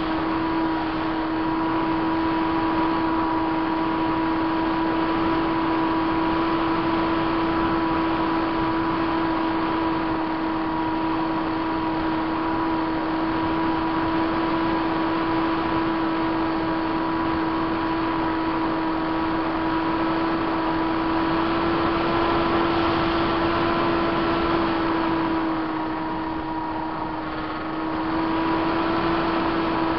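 Multiplex Easy Star's Permax 400 electric motor and pusher propeller running steadily, a high buzzing whine over wind rush, heard from a camera on the plane itself. Near the end it eases off briefly, dropping a little in pitch and loudness, then picks up again.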